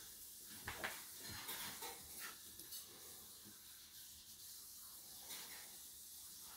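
Small dogs play-wrestling on a rug: faint scuffling, with a couple of short sharp sounds a little under a second in.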